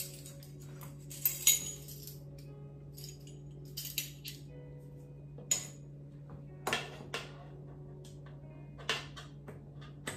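A ring of metal measuring spoons clinking and jangling as they are handled, with a sharp metallic clink every second or two, often two in quick succession. A steady low hum runs underneath.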